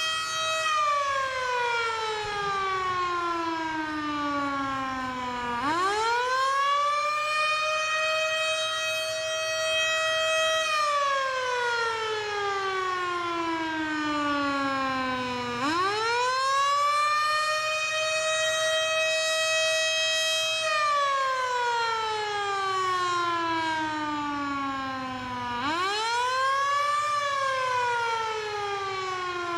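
Sparton (Sparks-Withington) Model 37 outdoor warning siren sounding the Attack signal, here used as the tornado watch signal. Its wail rises quickly, holds at its top pitch for a few seconds, then slowly falls, repeating about every ten seconds.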